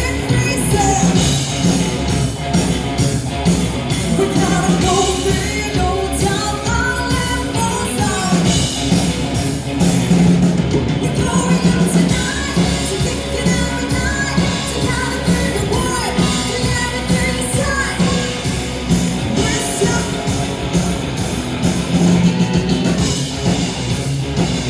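Rock band playing live at full volume: drums and electric guitar, with a woman singing lead through parts of the song.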